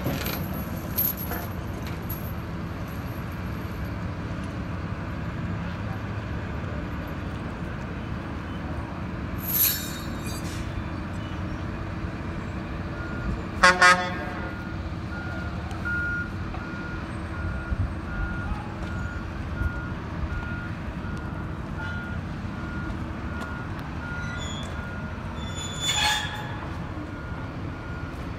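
Heavy diesel machinery running with a steady low rumble on a crane assembly site. About halfway through, a horn gives two short toots close together. After that a reversing alarm beeps repeatedly, with a short hiss about ten seconds in and another near the end.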